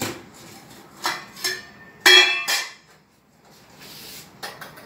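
Metal kitchen bowls and utensils clinking and knocking against one another in several separate strikes. The loudest clink comes about two seconds in and rings on briefly.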